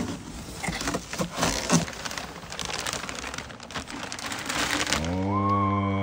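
Packing stuffing crumpling and rustling as a shipping box is unpacked, with irregular crinkles and small knocks. About five seconds in, a held pitched tone begins.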